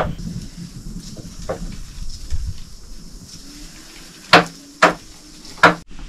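Hard objects knocking, with a light clatter between. Three loud sharp knocks come in the second half, the first two half a second apart.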